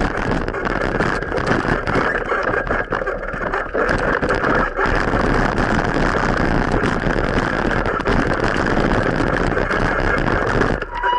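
Steady, loud road and traffic noise with motor vehicles running, heard while cycling along a road, with constant rumble and short bumps through the action camera's microphone.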